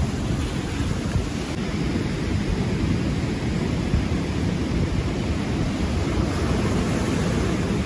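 Steady rush of wind on the microphone and sea noise aboard a boat at sea.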